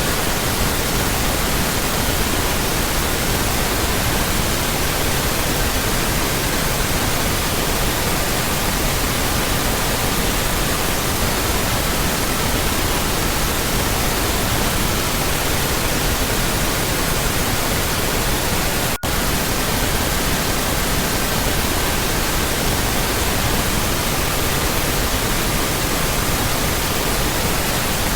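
Steady synthetic pink noise with faint pure tones around 1.2 to 1.5 kHz mixed in, some fading in and out. A momentary dropout about two-thirds of the way through.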